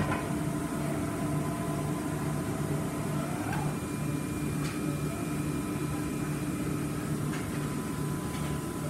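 Large industrial thermoforming (vacuum forming) machine running through its cycle, a steady mechanical hum with a low pulsing drone as its platens move, with a few sharp clicks.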